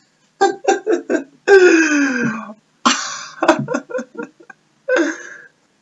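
Laughing: a run of quick short bursts, then a long cry falling in pitch about two seconds in, then more short bursts.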